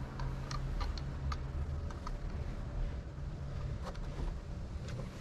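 Scattered light clicks and taps of hands working the timing belt around the cam gears of a 2JZ-GTE engine, a cluster in the first second or so and a few more near the end, over a steady low hum.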